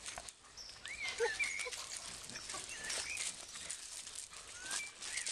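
Puppies play-fighting on loose gravel: paws scrabbling and crunching the stones, with several short high-pitched squeals.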